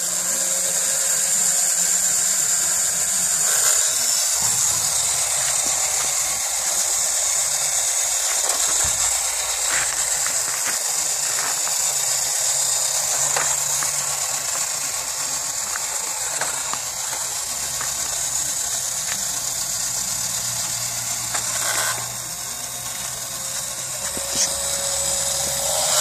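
The motor and gear mechanism of a Bandai tin toy Chevrolet police car run steadily as the toy moves, with a few faint clicks along the way.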